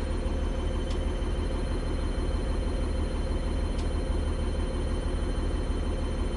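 Bus engine idling steadily just after start-up, with a steady high tone over it and two faint ticks, about a second in and near four seconds.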